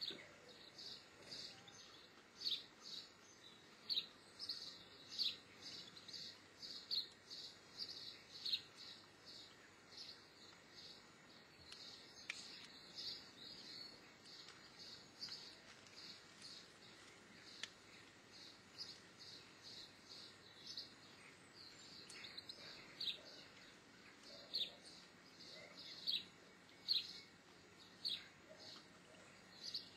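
Short, high chirps repeated about once or twice a second, a bird calling.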